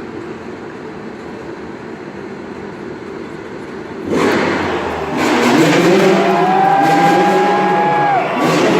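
Low background crowd noise, then about four seconds in a motorcycle engine comes in loud and revs up, rising in pitch, holding a steady high note and dropping off near the end.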